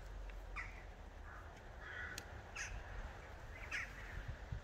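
Birds calling: about five short calls spaced out over a few seconds, over a low steady rumble.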